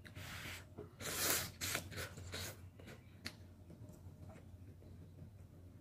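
Ramen noodles slurped off chopsticks in two short hissing pulls about a second apart, then quieter eating sounds with a light click a little past the middle.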